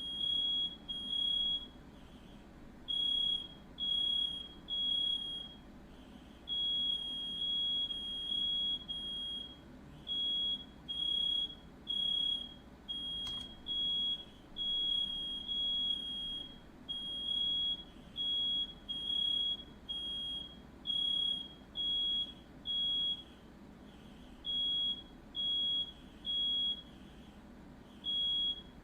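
Smoke alarm sounding, a run of high-pitched electronic beeps about one a second with short gaps, set off by smoke from a house fire. A single brief click sounds about halfway through.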